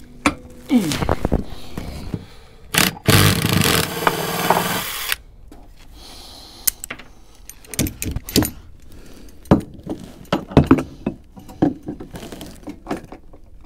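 Handling noise as work goes on with hand tools: vise grips (locking pliers) clinking and rattling, with scattered sharp clicks and knocks. About three seconds in comes a loud, rough scraping noise lasting about two seconds.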